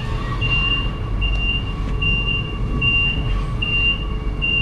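Eurotunnel shuttle's compartment incident alarm signal played as a demonstration over the PA: a high-pitched beep repeating about every 0.8 s, over the low rumble of the shuttle train running through the tunnel.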